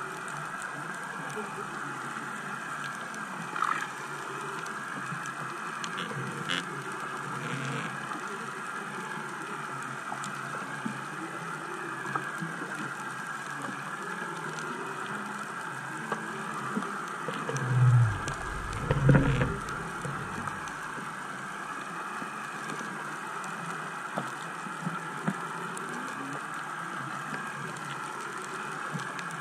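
Steady muffled hiss of water noise picked up by an underwater camera in its housing, with two low thuds about a second apart roughly two-thirds of the way through.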